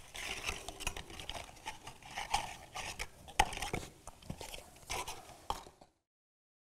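Shell castanets made from seashells being put back into a small metal bowl: irregular clicks, clatters and scrapes of shell on shell and on metal, with one louder knock about three and a half seconds in. The sound cuts off suddenly near the end.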